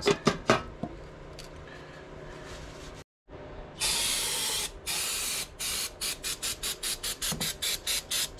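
A metal lid pressed back onto a gallon can of carburetor dip, with a few sharp knocks in the first half second. About four seconds in, an aerosol can of carburetor cleaner sprays the carburetor body: two longer blasts, then a quick run of short squirts about three or four a second.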